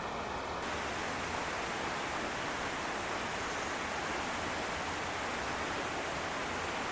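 Waterfall rushing steadily: a dense, even hiss of falling water, growing brighter about half a second in.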